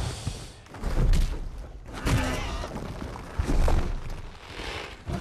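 Film fight sound effects: heavy thuds and crashes of a giant ape and tyrannosaurs falling through vines, three big hits about a second apart.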